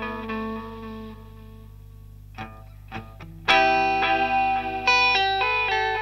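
Electric guitar played through a Madbean Dirtbaby PT2399 analog-style delay pedal set to a short delay time for a chorus/vibrato effect. A held note rings and fades, two brief muted string scratches follow, then a loud chord is struck about three and a half seconds in and a run of picked notes continues.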